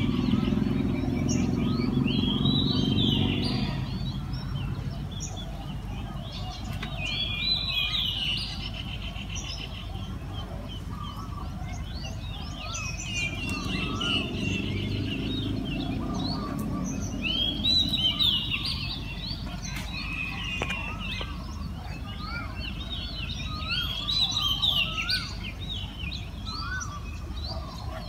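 Many small birds chirping and twittering in short repeated calls over a low hum of traffic, with a vehicle rumbling past about halfway through. Music fades out in the first few seconds.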